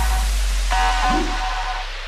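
Electronic background music: a deep bass note slowly fading under sustained synth tones.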